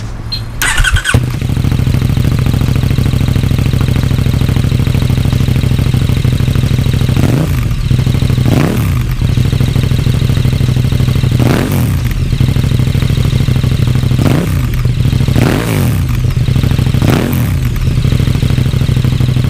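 KTM 1290 Super Duke R's 1301 cc 75° V-twin, breathing through an Akrapovic silencer, firing up about a second in and settling into a steady idle. It is then revved in six short throttle blips, each rising and dropping back to idle.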